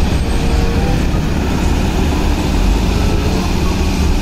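Concrete mixer truck's diesel engine running as the truck pulls away, a steady, loud low rumble.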